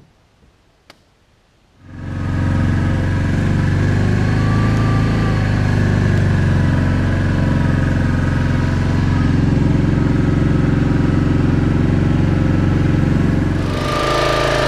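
An engine starts up about two seconds in and runs steadily at a low idle, its note shifting near the end.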